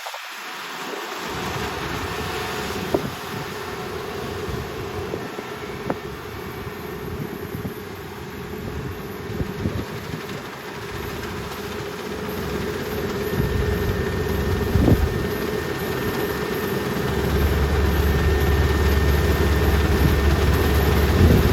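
Combine harvester's engine running steadily, with a low rumble that grows louder about two-thirds of the way through and a few faint knocks.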